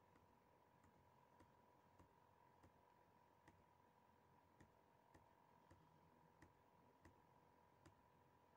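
Soft, repeated clicks from a computer being operated, about a dozen, spaced irregularly half a second to a second apart. Under them is near silence with a faint steady whine.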